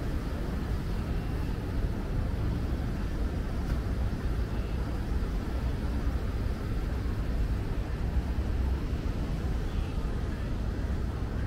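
Steady low rumbling outdoor noise with a hiss over it, without any clear single event.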